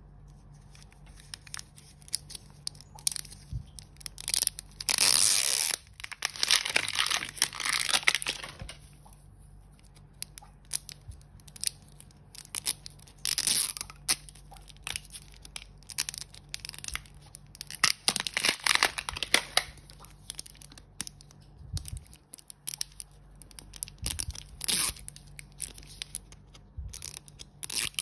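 Wrapping layers of a L.O.L. Surprise toy ball being torn and peeled off by hand, with crinkling, in repeated spells of tearing and quieter handling in between.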